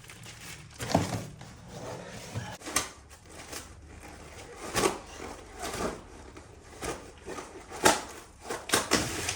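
New drilled and slotted brake rotors and their cardboard packaging being handled: scattered knocks, clicks and rustling.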